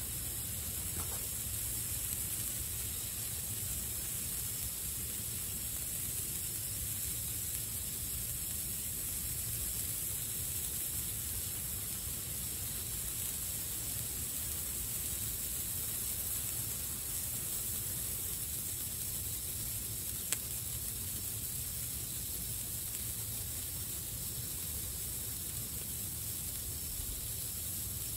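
Small fountain fireworks burning with a steady hiss, with one sharp click about twenty seconds in.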